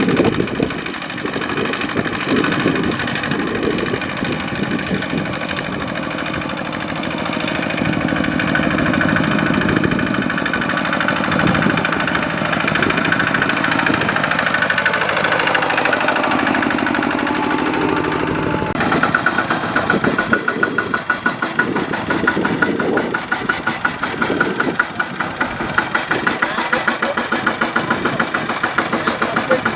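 Kubota single-cylinder diesel tractor engine running steadily. Partway through, the sound changes abruptly to a pulsing, regular putter from the engine.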